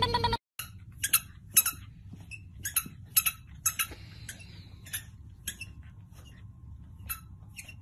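A puppy playing with a tennis ball, with a dozen or so irregular, sharp metallic clinks over several seconds.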